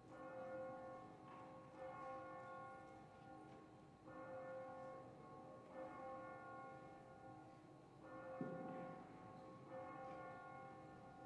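Church bell ringing faintly, struck again roughly every one and a half to two seconds, each stroke left to ring on. A short dull thud about eight seconds in.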